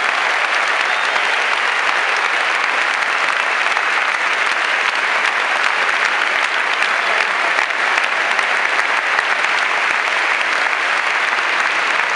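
A large tennis stadium crowd applauding, a steady dense patter of many hands clapping at an even level.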